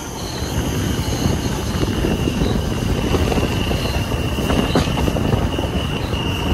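Train running along the track: a steady rumble of wheels on rail, growing a little louder about half a second in, with a thin, high, steady wheel squeal over it and a single sharp click about five seconds in.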